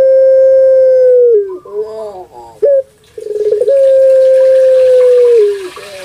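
Caged puter pelung, a Barbary dove, cooing: two long, drawn-out steady coos that each drop in pitch at the end, with a short bubbling coo between them.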